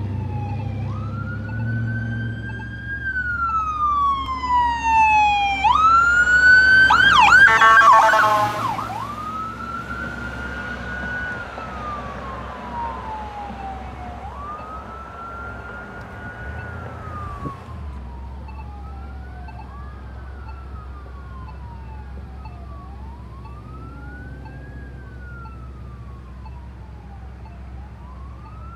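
Emergency-vehicle sirens from a fire engine and an ambulance responding, mostly a wail rising and falling every few seconds. About six to nine seconds in, several sirens overlap, with rapid quick-changing tones, and this is the loudest part as the rigs pass. After that a single wail carries on more faintly over engine rumble.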